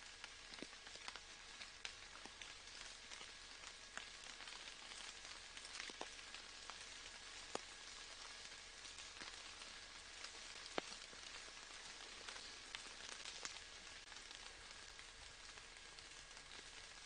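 Faint, steady rain: an even hiss of falling drops, with occasional single drips that stand out as sharp ticks.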